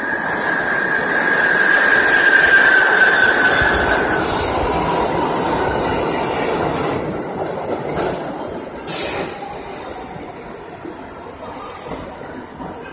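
An R62A subway train pulls into the station. Its wheels squeal steadily at first, and the squeal fades out about four seconds in. The cars rumble and clatter past, with two short hisses, and the sound dies down toward the end as the train slows.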